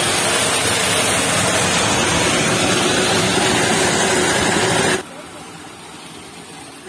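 Water pouring through the opened sluice of a small concrete check dam, a loud steady rush. About five seconds in it drops suddenly to a quieter, steady flow.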